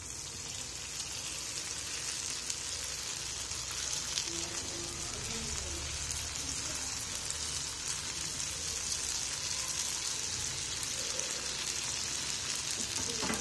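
Samosas deep-frying in hot oil in a frying pan: a steady hissing sizzle that builds a little over the first couple of seconds as they go into the oil.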